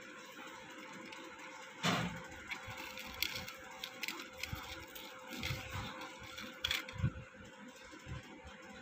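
A fried fritter being handled and torn open by hand over a steel plate: a sharp knock about two seconds in, then scattered light clicks and crackles for several seconds.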